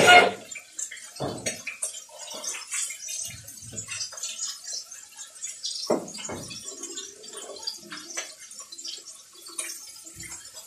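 Green chillies being sliced on a boti, the upright curved blade of a traditional Bengali floor cutter: a run of small, irregular wet snips and clicks, with one louder sound right at the start.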